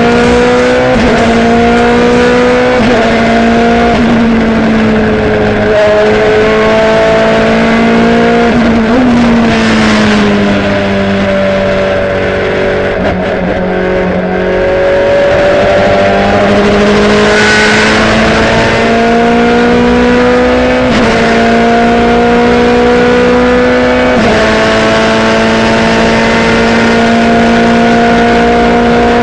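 Ferrari F430 GT2 race car's V8 heard from inside the cockpit at full throttle. The pitch climbs and then drops suddenly at each upshift, a few seconds apart. Partway through it falls away as the car slows for a corner, then climbs through the gears again.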